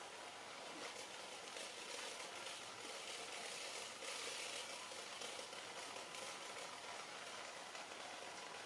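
Faint, steady hiss of outdoor background ambience, without monkey calls or other distinct events.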